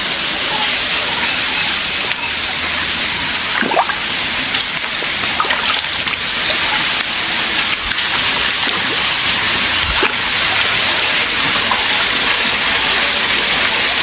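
Rushing water from a waterfall and its stream: a loud, steady hiss.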